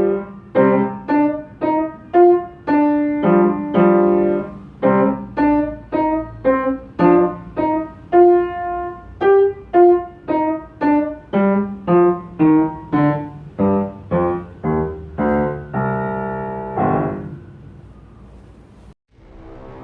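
Piano playing short, separated notes and chords at about two a second, closing on a held chord that rings and fades away. Just before the end, a different piece of music begins.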